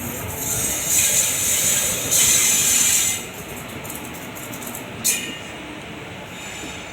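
ICF passenger coach running on the track: a steady rumble, with a loud hissing rush from about one to three seconds in and a single sharp click about five seconds in.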